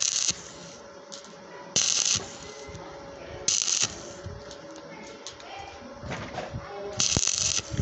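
Stick (arc) welding on a steel tube, the electrode's arc struck in short spells: four bursts of loud crackling hiss, each about half a second, with quieter spitting and ticking in between as the weld pool glows.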